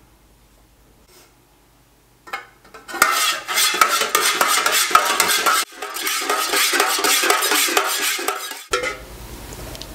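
A utensil stirring melted soy wax in a metal candle-making pouring pitcher, scraping and clinking against its sides as a dye block is mixed in to dissolve. The stirring starts about three seconds in, breaks off briefly halfway, and stops near the end.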